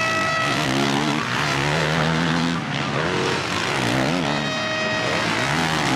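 Motocross race bikes' engines revving up and down repeatedly as the riders race through the section, starting about a second in after music fades out.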